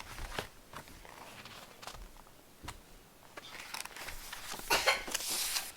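Picture-book pages being handled and turned: a few faint soft taps, then a paper rustle that grows louder about three and a half seconds in and fades near the end.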